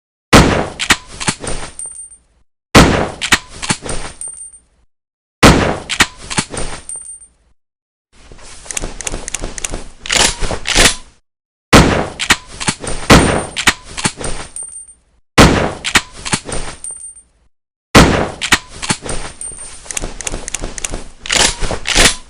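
Rifle sound effects played one after another: six times a loud shot followed by a string of quieter clicks and knocks, each cut off into dead silence, and one clip about eight seconds in that swells up without a sharp opening shot.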